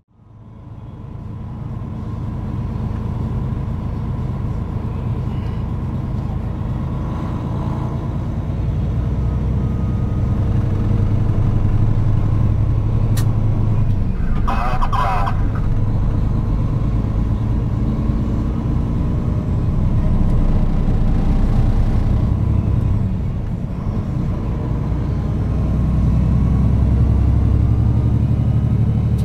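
Steady engine and road drone inside a semi truck's cab while cruising on the highway, fading in from silence at the start. A short, sharper sound cuts through briefly about halfway.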